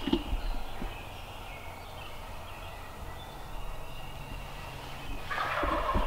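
A wild turkey gobbler gobbling once, about five seconds in, the call lasting about a second.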